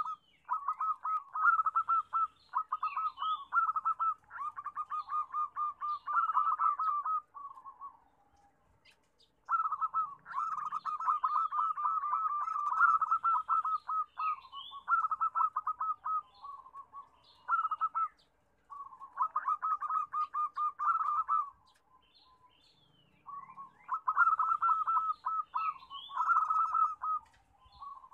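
Zebra doves (perkutut) cooing: runs of rapid staccato coos around one pitch, phrases lasting several seconds, with brief pauses about 8 and 22 seconds in. Faint high chirps of small birds over them.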